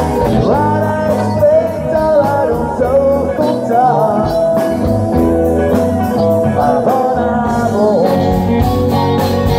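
Live rock band playing amplified, with electric guitar, bass and drums under a bending melody line.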